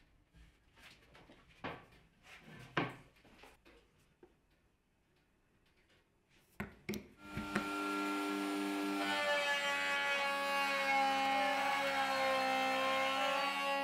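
Several light wooden knocks and clicks as hardwood frame parts are handled, the loudest about three seconds in. About seven seconds in, a table-mounted router starts up and runs with a steady whine over a hiss, its pitch dipping briefly under load as a bearing-guided flush-trim bit trims the edge of the curved frame.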